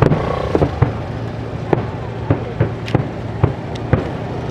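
Aerial fireworks display: shells bursting in sharp bangs at uneven intervals, about two a second, over a constant background din.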